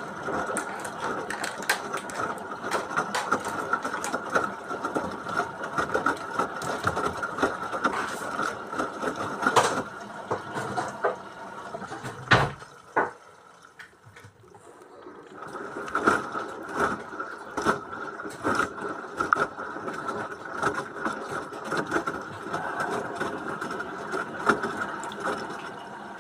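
LG washing machine running a wash cycle, heard from inside: a steady motor hum with many irregular clicks and knocks from the turning drum and load. It stops for about two seconds about halfway through, then starts again.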